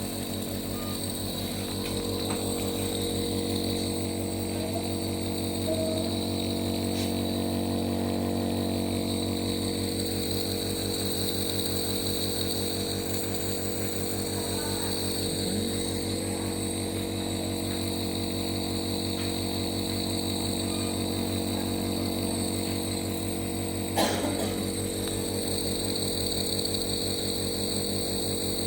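Steady machine hum, unchanging throughout, with one sharp click about 24 seconds in.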